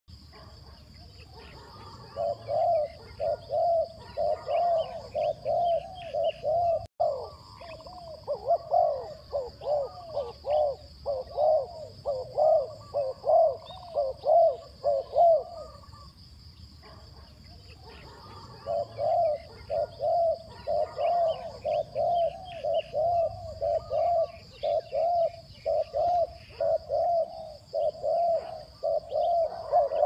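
Spotted doves cooing: long runs of short, quick coos, about two or three a second, with a pause of a couple of seconds just past the middle.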